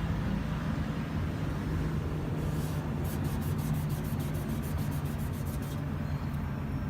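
Steady low hum of an idling diesel truck engine. In the middle, a quick run of faint, evenly spaced high ticks lasts a few seconds.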